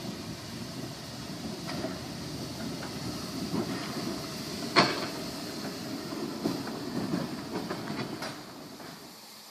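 Harz narrow-gauge 2-10-2 steam tank locomotive 99 7237-3 working slowly past at close range, with steam exhaust and the running clatter of its wheels and rods. A single sharp metallic clank stands out about five seconds in.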